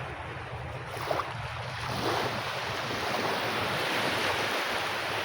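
Sea surf breaking and washing up on a beach, a steady hiss that swells louder about two seconds in, with wind noise on the microphone.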